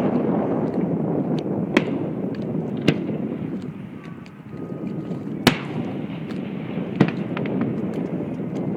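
Fireworks going off: sharp bangs and smaller pops every second or two, the loudest about five and a half seconds in, over a continuous rumbling noise.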